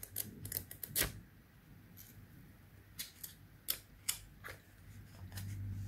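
Sticky-note pad being handled, with fingers flicking and lifting the paper sheets: a scattered series of light clicks and paper ticks, busiest in the first second.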